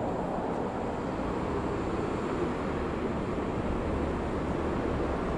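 Steady low rumble of outdoor city ambience, like distant traffic, holding an even level throughout.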